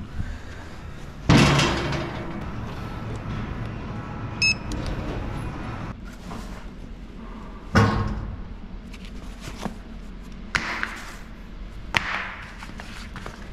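Two loud, heavy thuds, the first about a second in and the second near eight seconds, then lighter knocks near the end, with a short high beep about four and a half seconds in.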